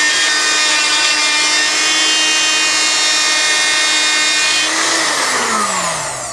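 Magic Bullet blender motor running at a steady high whine, then winding down with falling pitch about five seconds in as the cup is released. It has completely stopped blending; the owner suspects the worn plastic coupling on the blade slipped on the ice.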